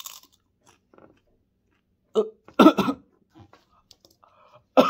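A man bites into a dried ghost pepper with a brief crunch, then lets out loud gasping vocal outbursts at its heat, about two seconds in and again near the end.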